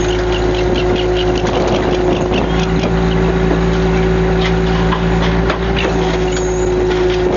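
Fishing trawler's engine running steadily, a deep hum with a few held tones, with faint quick ticks repeating a few times a second over it.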